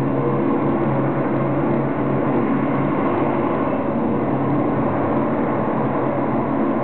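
Steady, dense drone from an immersive sound-art piece: several held low tones over a thick noisy wash, with an even level throughout.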